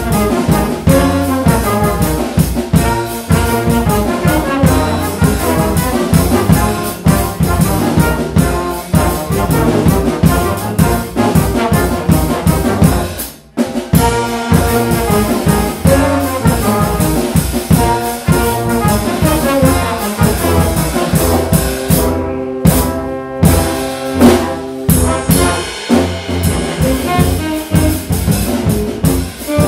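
Brass ensemble of trumpets, trombones and tuba, with a drum kit, playing a jazz-flavoured piece. The music breaks off briefly about halfway through, then comes back in short, detached chords, and the trumpets drop out near the end.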